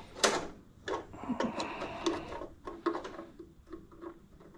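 Small metal clicks and taps of hand tools working on a lawn tractor engine's carburetor linkage: one sharp click just after the start, then a run of irregular light ticks, about three a second.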